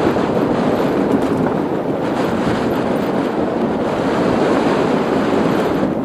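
Mountain bike riding over a loose slate-gravel trail: a steady rush of tyre noise and rattle, with wind buffeting the microphone.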